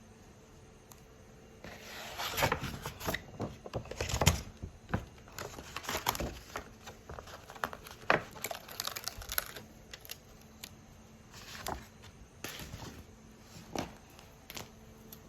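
Sticker card packaging being handled and opened by hand: irregular bursts of crinkling and rustling with small sharp clicks, starting about two seconds in and thinning out near the end.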